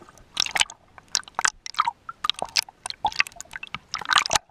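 Water splashing and dripping right at a wet microphone: irregular wet crackles and squishy clicks with short gaps between them.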